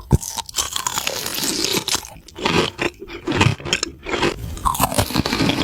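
Close-miked crunching of crisp food being bitten and chewed, a rapid run of crackly snaps with short pauses between bites.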